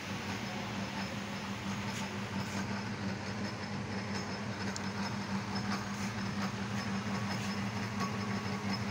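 Abdullah AE-900A 3.5 kg dough kneader running empty on its timer, its electric motor giving a steady, even hum.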